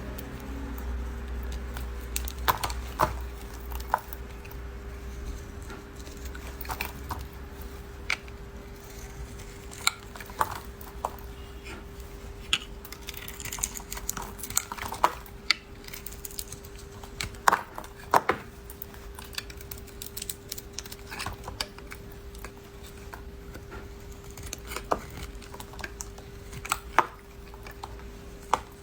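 Knife cutting and carving a bar of soap: irregular crisp clicks, snaps and crackles as the blade breaks through, a few of them louder, over a faint steady hum.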